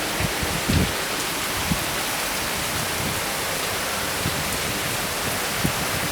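Heavy rain falling in a steady hiss, with a few soft low thumps here and there.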